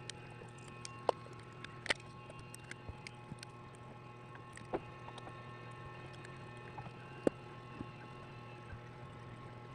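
Small hand tools and phone parts being handled during a phone screen repair: scattered light clicks and taps, with a few sharper ones about a second in, two seconds in, near five seconds and past seven seconds, over a steady low hum.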